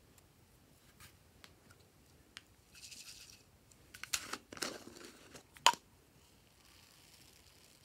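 Hard plastic clicks and scraping as the lid is twisted and pulled off a small plastic jar of foam beads, ending in one sharp click. A brief rustle of handling comes a little earlier.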